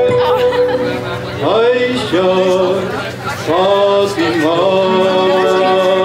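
Music with a man's voice singing long held notes, sliding up into a new note twice.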